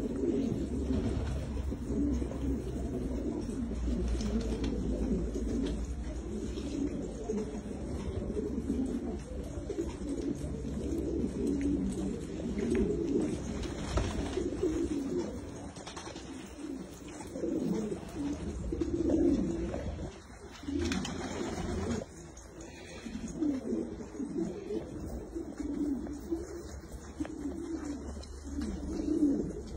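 A flock of domestic fancy pigeons cooing continuously, many low, warbling coos overlapping.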